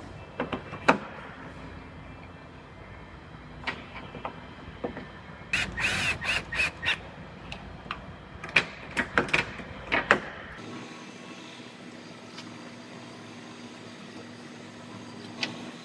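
Scattered clicks, taps and knocks of parts and hand tools as a car's bumper, headlight and fender are refitted, with a short run of pulsed high-pitched sounds about six seconds in and a cluster of louder knocks around nine to ten seconds.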